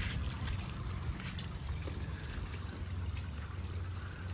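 Steady trickle and splash of water from a garden hose spraying into an inflatable paddling pool, over a low steady hum.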